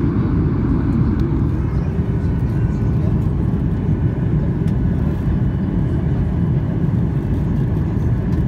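Steady cabin noise inside a Boeing 737 airliner during descent: an even low rumble of engines and rushing air.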